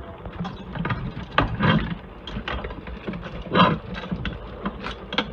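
Pieces of chocolate bar being dropped into a stainless steel pot and handled in it: an irregular run of small clicks and knocks, with a few louder knocks about a second and a half in and again past halfway.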